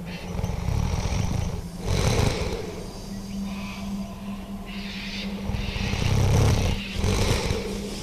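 Experimental noise music: a steady low hum under rough, growling noise swells, loudest about two seconds in and again near the end.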